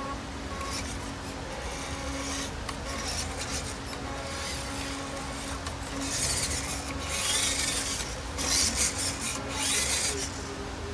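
Electric motor and gearbox of a WPL B36 6x6 RC truck whirring with a rasping sound as it drives forward and back across a wooden surface. It comes in several short bursts, one for each throttle push.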